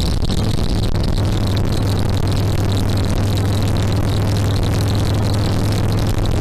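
Harley-Davidson Sportster XL1200R's air-cooled V-twin engine running at a steady pitch with a loud, even rumble, under a haze of wind and road noise.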